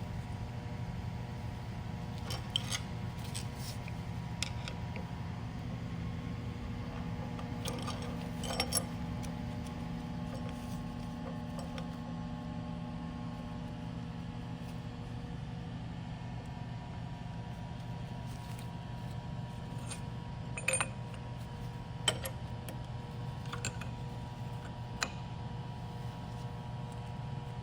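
Scattered light metallic clicks and clinks of small pump parts and tools being handled and fitted, in a few short clusters, over a steady low hum.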